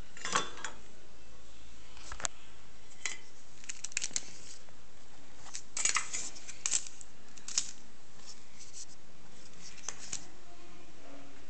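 Handling noise: irregular light clicks and taps of small plastic and metal items being moved about, the loudest cluster about six seconds in.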